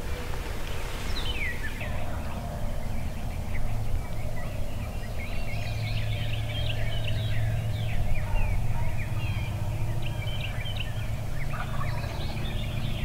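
Wild turkeys gobbling amid a dawn chorus of many small songbirds chirping and trilling, over a steady low hum.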